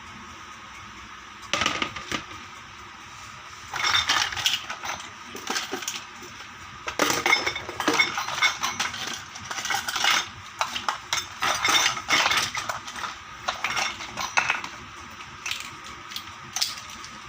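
Miniature toy kitchen dishes and utensils clinking and clattering as they are handled, in uneven clusters of small knocks and clinks with short pauses between.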